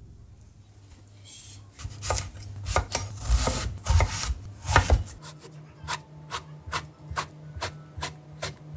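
Kitchen knife chopping food on a cutting board. Irregular scraping cuts come first, then steady strokes about two to three a second over a low steady hum.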